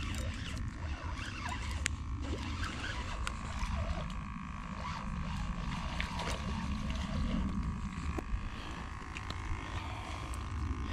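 Spinning reel being cranked to bring in a small black drum, over a steady low rumble, with a few sharp clicks.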